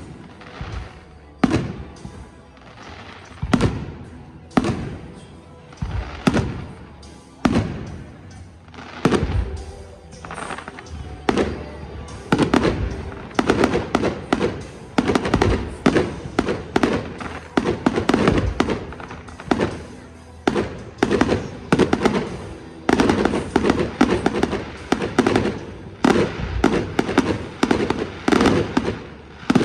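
Fireworks display: aerial shells bursting one after another, each a sharp bang with a trailing rumble. The bursts come about once a second at first, then from about twelve seconds in they run together into a dense, rapid barrage.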